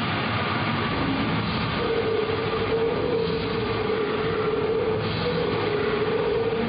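Death metal band playing live: guitars and drums blurred together into one dense, loud wash, with a held note coming in about two seconds in. The recording is band-limited and smeared, as from an old camcorder.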